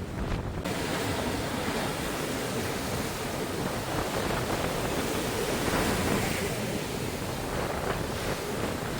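Sea surf washing onto a sandy beach, a steady rushing that swells midway, with wind buffeting the microphone.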